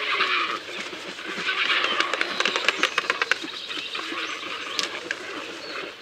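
A flock of white ibises calling in short, harsh bursts, with a run of rapid clicks and ticks about two and a half seconds in.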